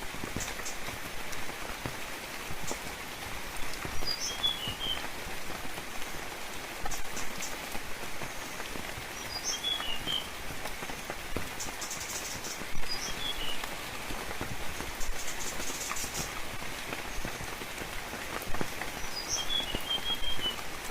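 Steady rain falling, with scattered clicks of individual drops. Over it a small bird gives short phrases of a few quick high chirps, about every five seconds.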